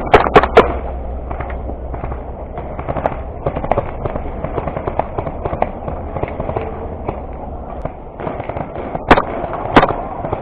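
Airsoft guns firing: three sharp shots in quick succession right at the start, two more about a second apart near the end, with lighter cracks and clicks scattered between.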